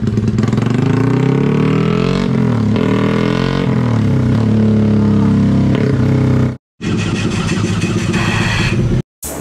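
Modified Yamaha Y15ZR's single-cylinder four-stroke engine revving hard on a roller dyno through an aftermarket exhaust, its pitch climbing through the pull. About six and a half seconds in the sound cuts off abruptly and another stretch of engine running follows.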